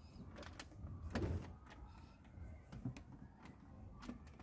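Hands pushing a silicone light-insert strip into the plastic trim gap along a car's centre console: faint clicks and rubbing of plastic, with one louder scrape about a second in.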